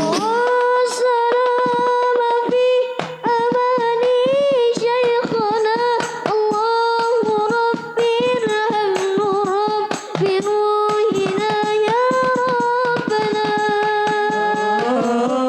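A child's high voice sings a long, ornamented sholawat melody line without clear words, with held notes that waver and turn.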